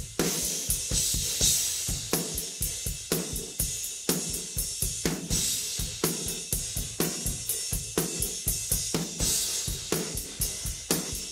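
Isolated drum-kit stem of cymbal, tom and room-ambience tracks, with no other instruments: a steady driving rock beat, with cymbals washing over it and the snare and kick drum coming through in the ambience.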